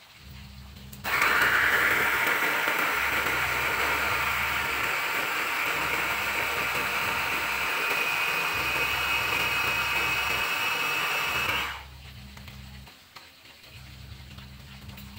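A small electric mini food chopper runs for about ten seconds, grinding red vegetables into a paste: a steady high motor whine with a blade-churning rush that starts about a second in and cuts off sharply about three seconds before the end.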